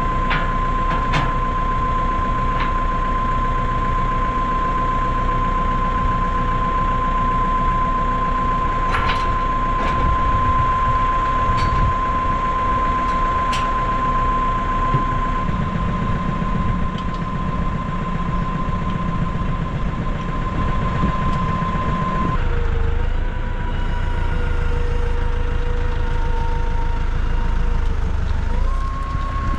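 Tractor engine running at a steady idle with a constant whine, while a few sharp clicks sound as hydraulic hose couplers are pushed home. About two-thirds of the way through the engine note drops and then wavers as the tractor moves off.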